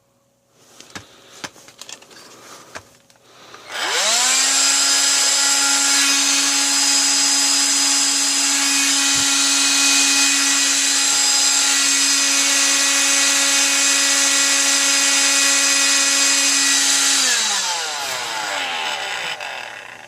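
Electrolux ZB6108 cordless stick vacuum's motor, running on its newly refitted lithium battery pack: after a few handling clicks it is switched on, spins up quickly with a rising whine, runs steadily for about thirteen seconds, then is switched off and winds down with a falling pitch.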